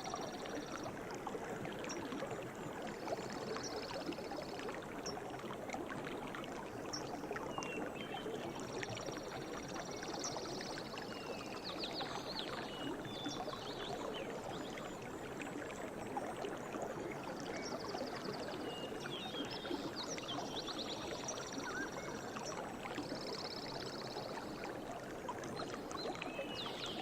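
Forest ambience: a steady rush of flowing stream water, with small birds chirping and high trills coming and going every few seconds.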